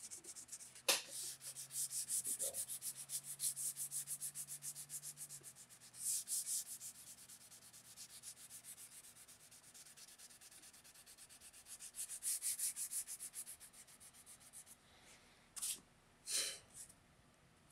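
Sandpaper backed by a block rubbed back and forth on a wooden rifle stock, sanding over the edge of the checkering. The strokes are quick and even, about four a second, and come in bouts that fade and pick up again. There is a sharp click about a second in and a couple of short handling knocks near the end.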